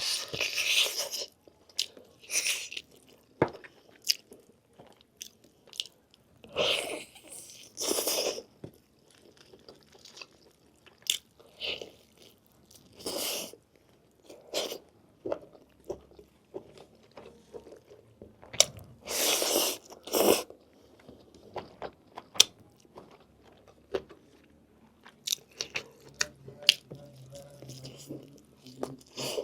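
Close-miked eating: a person biting and chewing lamb meat on the bone, with wet chewing and crunching in irregular bursts and a few louder bites spread through.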